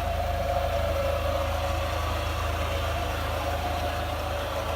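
1995 Nissan Hardbody pickup's engine running steadily, heard as a constant low hum with a steady higher drone over it.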